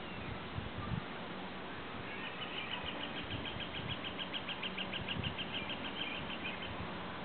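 A bird singing a long, even trill of quick repeated notes, about five a second, starting about two seconds in and stopping near the end, over a steady background hiss.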